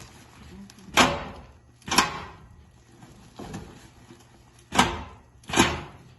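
Seed bagging machine working: five sharp clacking knocks at uneven spacing, each followed by a brief fading rush, as bags are clamped on and dropped off the filler.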